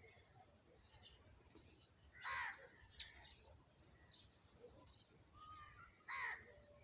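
Birds calling: two loud, short, harsh calls about four seconds apart over faint scattered chirping.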